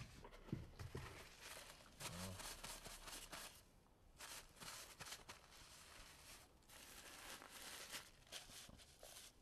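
Paper tissue being crumpled and rustled in the hands, faint crinkling in bursts with a couple of short pauses.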